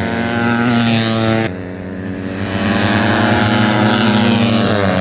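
Tuned 130 cc four-stroke underbone racing motorcycles running hard at high revs. The engine note breaks off abruptly about a second and a half in, then builds again.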